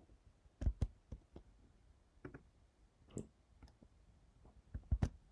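Irregular clicks of a computer mouse and keyboard, about ten short taps with the loudest pair near the end, as the software is operated by hand.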